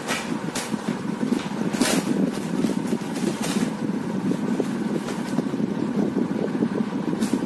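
A steady low background rumble, with a few brief crackles as a plastic courier bag is cut and torn open by hand.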